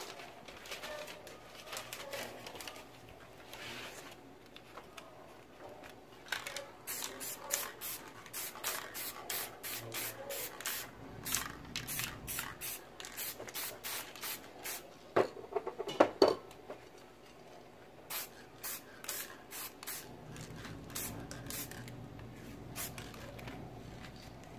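Aerosol spray-paint can sprayed in many short, quick bursts, about two hissing puffs a second, after a quieter stretch of paper rustling at first. A couple of loud clacks come about two-thirds of the way through.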